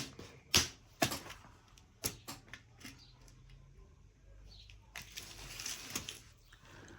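Small sharp clicks and taps from handling tiny jewellery parts and tools on a work surface, several in the first three seconds, then a soft rustle around five to six seconds in.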